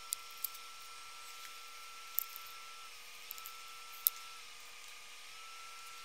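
A few light clicks of a steel scissors blade tapping against a glass bowl, the loudest about four seconds in, over a faint steady high whine.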